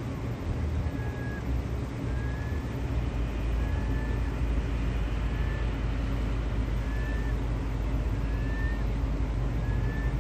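Low, steady engine rumble with a faint hum. A short, high rising chirp repeats about every second and a half, seven times in all.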